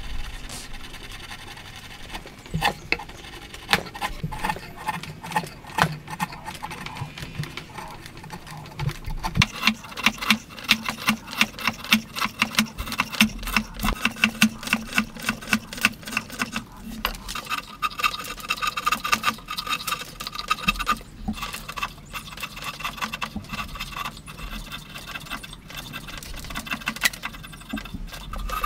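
Hand chisel paring shavings from a wooden beam: short scraping cuts of steel through wood, sparse at first, then a quick run of about three strokes a second from about a third of the way in.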